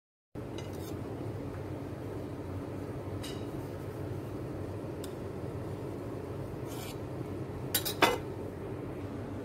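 Light kitchen clinks and knocks, like dishes or metal being handled, over a steady background hum. They come a few at a time, and the loudest is a short clatter about eight seconds in.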